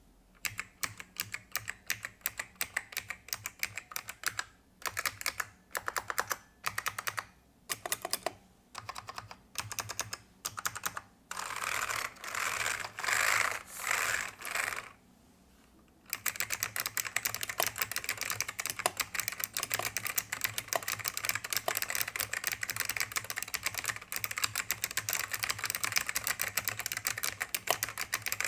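Typing on an ACME 850 server-rack mechanical keyboard with Alps four-tab clone switches: short bursts of key clicks separated by brief gaps, then a few louder, denser flurries, a pause of about a second, and from about halfway through continuous fast typing.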